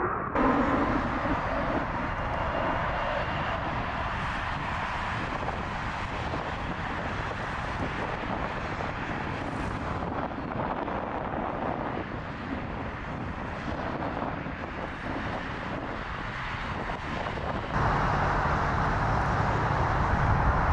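Steady jet engine noise of an Airbus A330-300 with Rolls-Royce Trent 700 engines climbing out after takeoff and passing away overhead. Near the end it cuts suddenly to a louder jet sound with a steady low hum, from a Boeing 787-9 on the runway.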